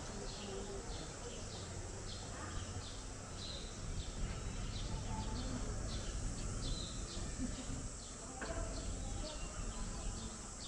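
Small birds chirping over and over, short high chirps coming a couple of times a second, over a steady low outdoor rumble.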